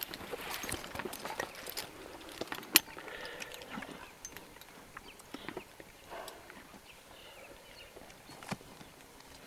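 Hoofbeats of a horse ridden at pace through dry grass, with irregular clicks and knocks, the sharpest about three seconds in.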